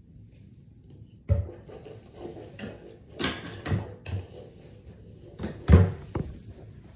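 Handling knocks and clatters on a bathroom counter as a plastic mouthwash bottle is set down and capped, then the recording phone is handled. The first knock comes about a second in, and the loudest near the end.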